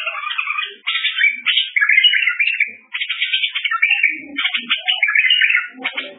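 Songbird singing loudly in long, rapid twittering phrases with short breaks between them.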